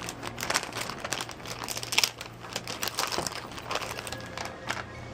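Crinkling and rustling of something being handled, with many irregular small clicks, the sharpest about two seconds in, over a steady low hum.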